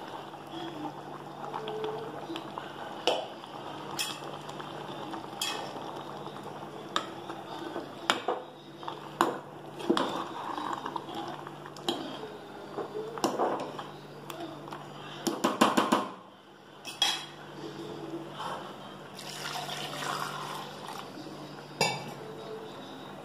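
A steel spoon clinks and scrapes against an aluminium cooking pot as thick ground masala paste is poured in and stirred into chicken gravy. There is a quick run of clinks about two-thirds of the way through, with a steady low hum underneath.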